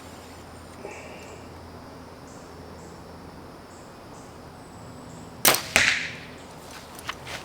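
A compound bow shot: a sharp snap of the string and limbs about five and a half seconds in, then a split second later a second, louder smack with a short ringing tail as the arrow strikes the target. A few lighter clicks follow.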